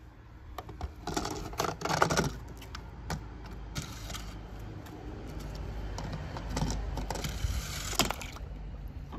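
A small toy bulldozer being handled and pushed by hand along a ramp of craft sticks and glitter foam: irregular plastic clicks, rattles and scraping. The sound is denser about a second in and again around seven to eight seconds.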